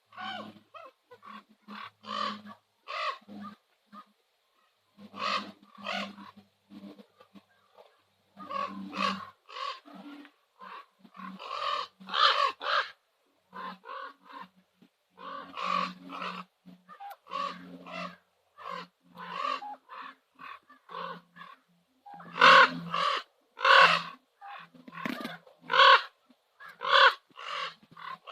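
Common ravens calling: a long run of short croaks and calls in irregular clusters, getting loudest after about twenty seconds.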